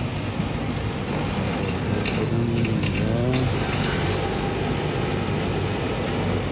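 Commercial centrifugal juicer running, its motor and spinning basket grinding produce as it is pushed down the feed tube, louder through the middle.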